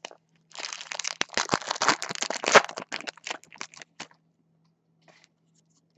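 Foil wrapper of a 2016 Topps Stadium Club baseball card pack crinkling and tearing as it is pulled open, a dense crackle for about three and a half seconds that stops short.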